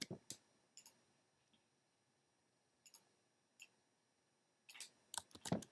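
Faint, scattered clicks of a computer keyboard and mouse. There are a few single clicks in the first second and two more around three seconds in, then a quick run of keystrokes near the end.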